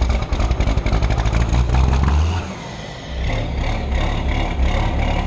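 Vehicle engine running with a low rumble and clatter; it eases off about two and a half seconds in and picks back up about half a second later.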